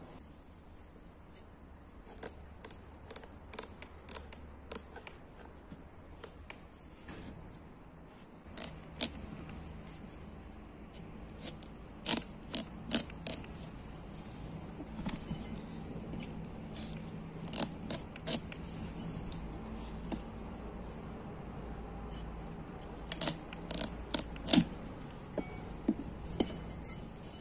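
A large kitchen knife cutting around the top of a pumpkin on a wooden cutting board: scattered sharp clicks, knocks and scrapes of the blade and the hard rind against the board, coming in several clusters.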